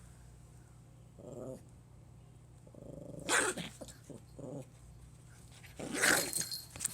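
Pomeranian puppy growling, with two loud, sharp barks, one about three seconds in and one near the end.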